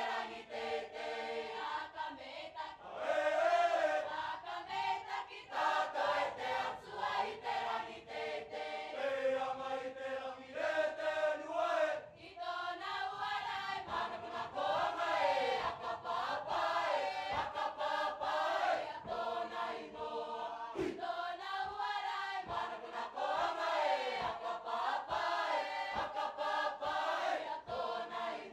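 Mixed choir of young Cook Islands performers singing together, male and female voices, with sharp percussive beats recurring through the song.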